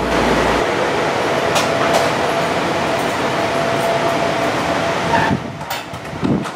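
Electric commuter train running into a station, heard from inside the car by the doors. Steady running noise carries a faint held tone, and the noise falls away suddenly a little over five seconds in as the train comes to a stop, followed by a few light knocks.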